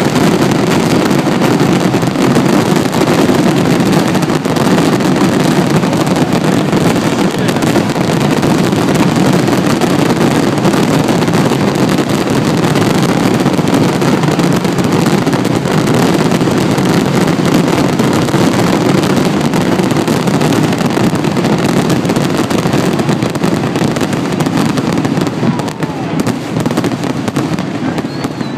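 Fireworks bursting in a rapid, unbroken barrage of bangs and crackle, easing slightly near the end.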